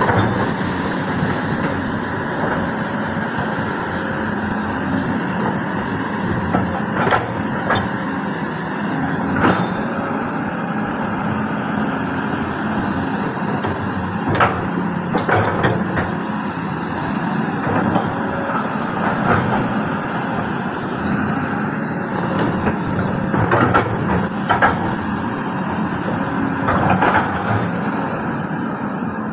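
Komatsu PC200-6 hydraulic excavator working: its diesel engine runs steadily under hydraulic load as the boom and bucket move and the upper body swings. Short sharp knocks and clanks come now and then.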